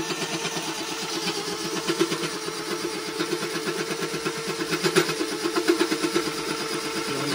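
Hand-held power drill driving a 7/8-inch line boring bar through a steel bore. The motor runs steadily under a fast, uneven rattle as the tool bit bounces and chatters in the cut, a sign that a hand drill gives no control over the cutter.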